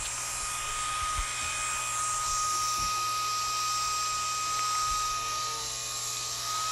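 Small propellers of a light-up flying ball toy running with a steady high whine, which drops out briefly near the end.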